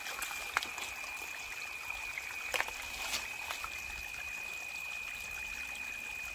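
Small water trickling over rocks and wet ground, with a few sharp clicks of small stones being knocked together as they are handled. A steady high-pitched whine runs throughout.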